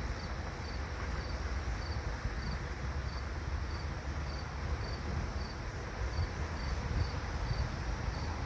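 An insect chirping in an even rhythm, about two short high chirps a second, over a steady low rumble.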